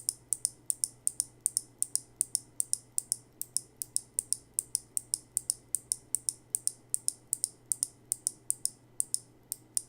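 A Kailh Box Navy clicky mechanical keyboard switch being pressed and released over and over, giving sharp, high clicks at about three to four a second.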